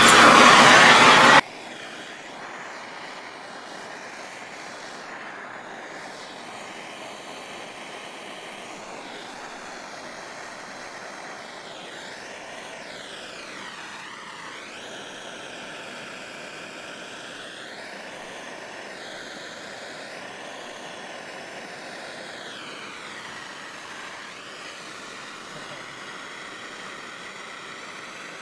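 A plumber's torch is lit with a flint striker and catches with a loud rush. After about a second and a half it settles to a steady, even rushing hiss of the flame as it heats a copper pipe joint for soldering.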